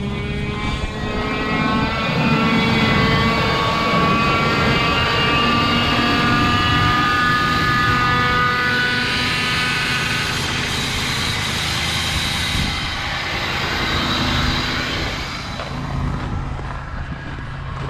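Ford F-150 5.4 L V8 idling just after a cold start in deep cold, with a groaning whine from the front of the engine that rises slowly in pitch and dies away about fifteen seconds in. The owner suspects the power steering pump, or else an idler or tensioner pulley on the serpentine belt.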